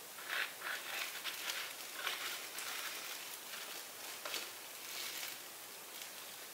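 Loose disposable plastic gloves crinkling and rustling in short irregular bursts as the hands move, over a faint steady hiss.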